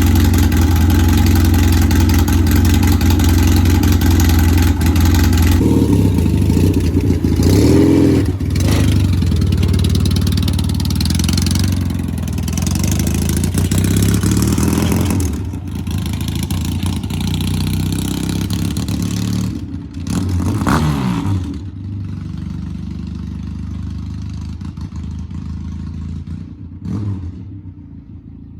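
Yamaha 650 twin engine running after being coaxed to start, with a few revs about 8, 12 and 20 seconds in. It gets quieter after about 21 seconds and quieter still near the end.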